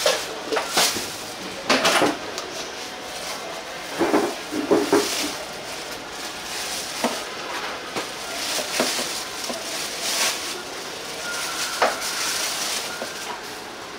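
Dishes and utensils clattering: irregular knocks and clinks, the loudest bunched in the first five seconds.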